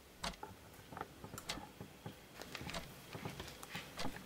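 Quiet, irregular clicks and taps, sometimes several a second, from hands handling a phone over a wooden table.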